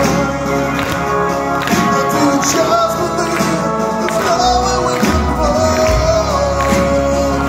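Live heavy metal band playing a song with a singer, drums and guitars going throughout.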